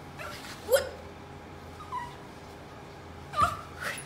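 West Highland white terrier whining in greeting: about four short, high, sliding whines and yips, the sharpest about a second in and two more close together near the end.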